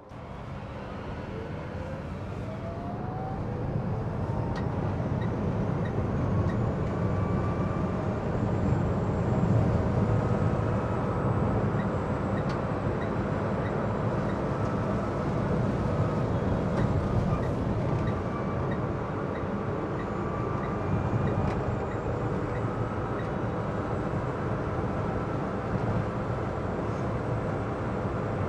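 Citroen Ami's electric motor whining, rising in pitch as the car pulls away and picks up speed, then holding a steady whine over constant road and tyre noise heard inside the cabin.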